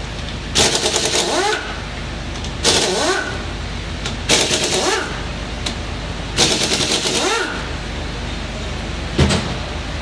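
An impact wrench hammering bolts loose on an engine block. There are four rattling bursts, each with a rising then falling whine, and a short knock near the end.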